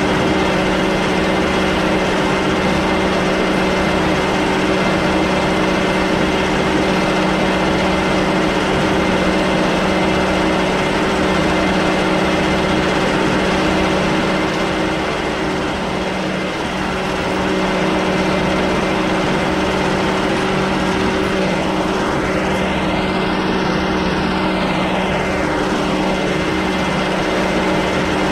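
Metalworking machine running steadily while a twist drill bores holes through a metal gear blank, a continuous machine hum with several steady tones.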